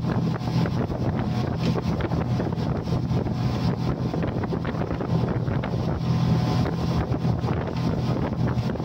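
Suzuki outboard motor running steadily at cruising speed with a constant low drone, under the rush of water from the wake and wind buffeting the microphone.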